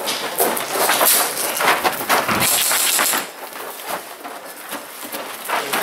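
Airsoft guns firing single shots in quick succession at close quarters, with sharp clicks and knocks throughout. A hiss lasts about a second near the middle.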